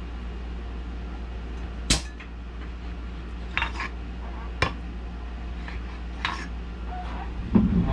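Aluminium soft-plastic bait injection mold being handled, with its metal plates giving a few sharp clicks and clinks, the loudest about two seconds in, over a steady low hum.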